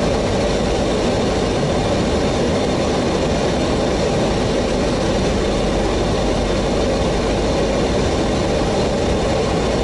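Steady flight-deck noise of an airliner on approach: rushing airflow and engine noise, even and unbroken.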